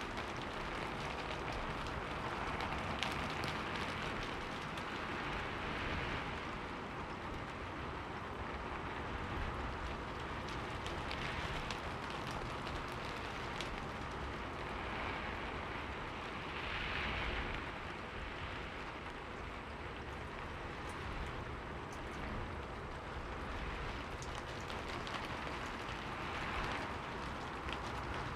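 Steady rain falling and pattering on surfaces, with scattered individual drop ticks and a few gentle swells in intensity.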